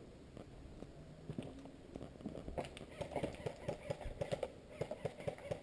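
Footsteps crunching through dry leaf litter and twigs on a forest floor, an irregular run of crackles that gets busier from about two seconds in, with faint distant voices underneath.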